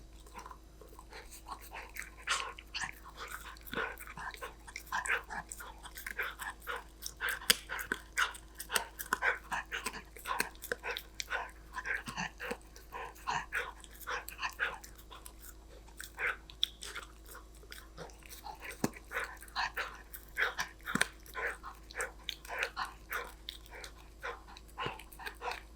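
English cream golden retriever puppy chewing and crunching a hard treat, with quick, irregular crunches several times a second.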